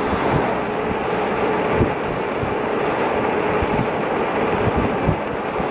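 Electric bike ridden fast on throttle only, at about 29 mph: a steady rush of wind buffeting the microphone and tyre noise, with a faint steady whine from the 750 W hub motor.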